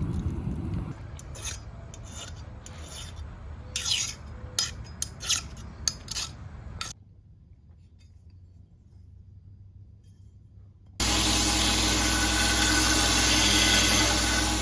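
A file rasping over a steel blade in a series of scraping strokes, followed by a few seconds of quiet. About eleven seconds in, a motor-driven shop tool starts abruptly and runs steadily with a low hum.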